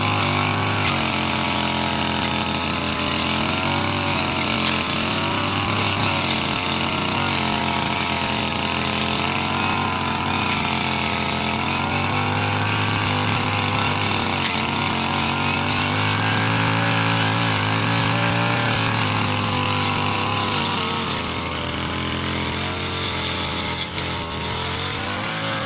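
Brush cutter (motorised grass cutter) engine running steadily while cutting grass, its pitch wavering up and down as the load changes.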